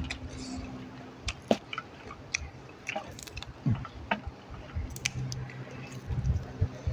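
A person chewing food with the mouth close to the microphone, with scattered sharp crunches and mouth clicks.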